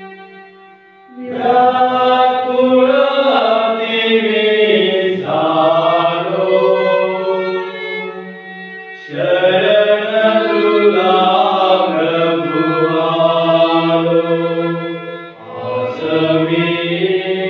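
Small group of men singing a Marathi hymn with violin accompaniment, in three sung phrases that begin about a second in, about nine seconds in, and near the end.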